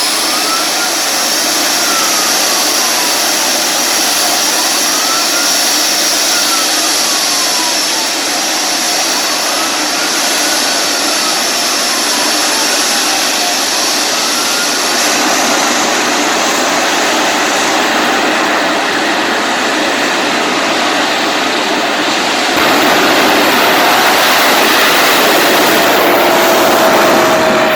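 Jet car's turbine engine running loud and steady with a high whine, growing louder about 22 seconds in.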